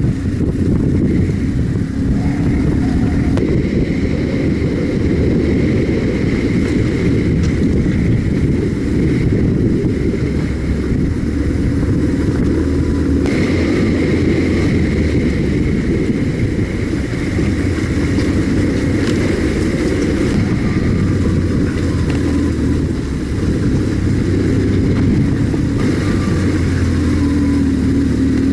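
BMW R1150GS motorcycle's boxer-twin engine running steadily under way, with a deep rumble and an engine note that shifts a little with the throttle.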